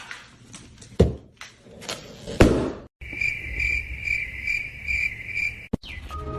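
A few knocks and thumps, then a high, even chirping that pulses about twice a second for a few seconds and stops suddenly.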